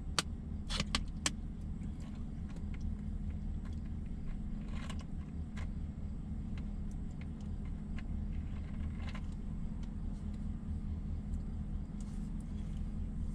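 Steady low hum of a stationary pickup truck's idling engine heard from inside the cab, with a few light clicks in the first second or so and now and then after.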